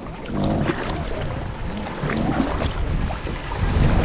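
Dinghy being rowed with oars: irregular small splashes and knocks in the water over a steady low rumble of wind on the microphone.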